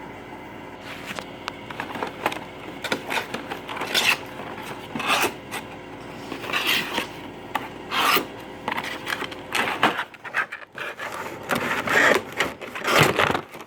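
A toy box being opened and its packaging handled: irregular rubbing and scraping of cardboard and plastic, with a few short knocks.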